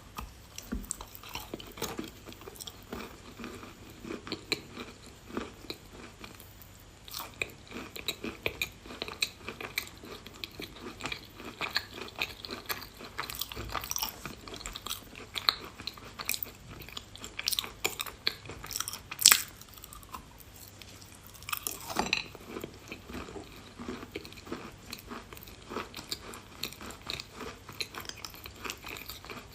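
A person biting and chewing chalk close to the microphone: a dense run of irregular crisp crunches and crackles, with one sharper, louder crack about two-thirds of the way through.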